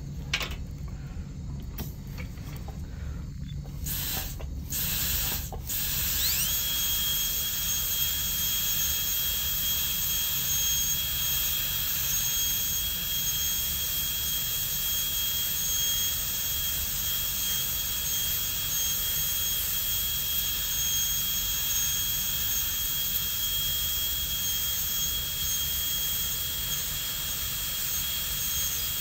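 High-speed dental handpiece spinning up about six seconds in, after a few light clicks, and then running with a steady high whine as it cuts a plastic typodont tooth, reducing the walls of a crown prep.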